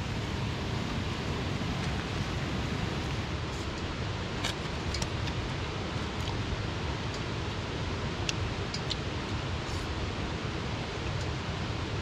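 Steady rush of a fast-flowing river, with a few faint clicks scattered through it.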